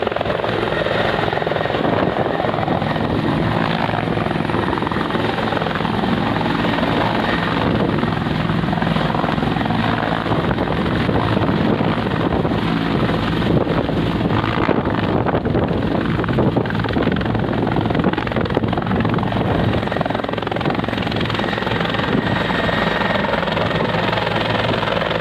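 Helicopter landing: steady loud turbine and rotor noise as it hovers low, settles onto the pad and keeps running on the ground with the rotor still turning.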